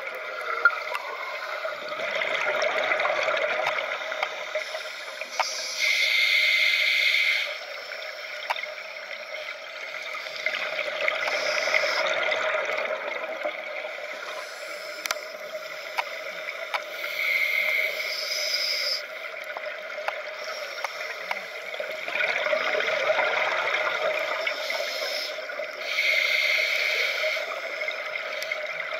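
A scuba diver's regulator breathing, heard underwater. Each breath is a short hiss through the regulator, then a longer bubbling gurgle as the exhaled air escapes. Three breaths come about ten seconds apart.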